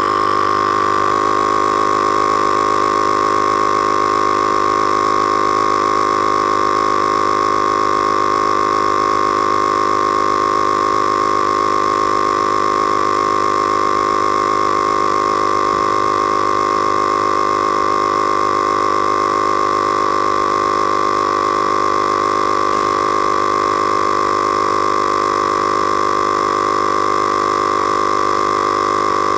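Husky portable tire inflator's compressor running steadily, pumping up an underinflated tire. A loud, even, unchanging buzzing drone.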